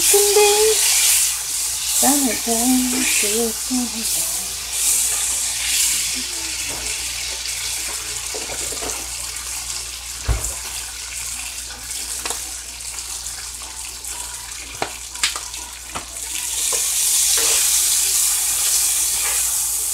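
Cubes of vegetable frying in oil in a cast-iron skillet: a steady sizzle while they are stirred and turned with a spatula, with a few sharp knocks of the spatula on the pan around the middle and the sizzle louder near the end. A voice sings a few words at the start.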